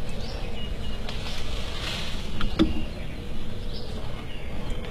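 Small birds chirping now and then over a steady low rumble, with a single knock about two and a half seconds in.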